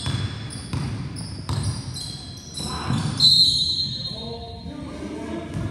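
A basketball bouncing on a gym court amid the squeak of players' sneakers, with one loud, high squeal lasting about a second about three seconds in.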